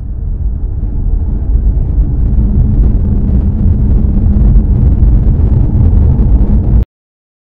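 A deep rumble that swells in loudness for the first few seconds, holds, then cuts off abruptly near the end.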